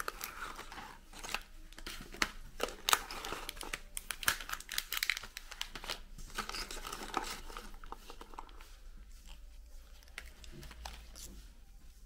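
A hand rummages through crimp-edged plastic packets and stick packets packed in a cardboard canister, crinkling and rustling the wrappers with many sharp crackles. The rustling is busiest for about the first eight seconds, then thins to a few soft rustles as one stick packet is lifted out.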